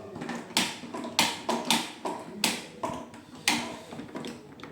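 Plastic parts of a PTMT cistern box clicking and knocking as it is taken apart by hand: a series of sharp knocks at uneven intervals.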